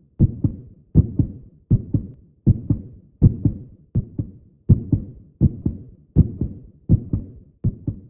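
Steady rhythm of low double thumps, one pair about every three-quarters of a second, each pair a louder beat followed quickly by a second.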